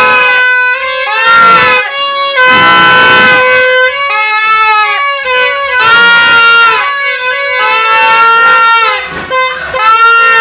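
Several blown noisemaker horns honking loudly over one another, their notes swelling and bending, with one steady note held underneath.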